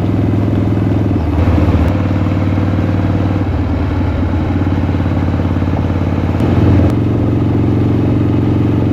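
1979 Harley-Davidson Shovelhead air-cooled V-twin running on the road. Its note changes in steps a few times, and it swells briefly with throttle about a second and a half in and again near seven seconds.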